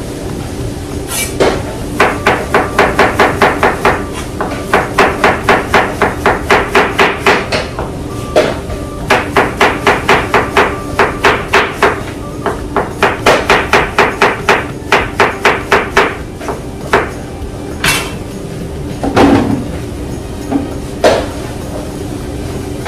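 Kitchen knife chopping on a cutting board in quick runs of about five strokes a second, with short pauses between runs, then a few single chops near the end. A steady hum lies underneath.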